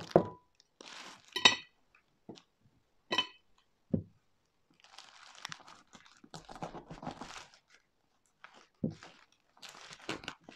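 A knife and ceramic plate clink twice with a short ring, among light knocks, then a few seconds of crackling and crinkling as a knife cuts into a white-chocolate-coated panettone sitting on its plastic wrapper.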